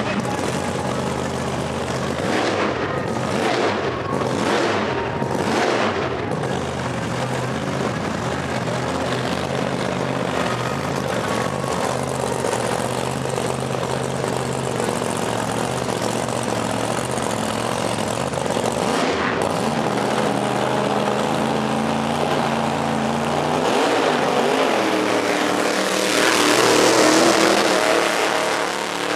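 Drag car's engine running steadily at the start line, then rising in pitch and accelerating hard at full throttle near the end, when it is loudest.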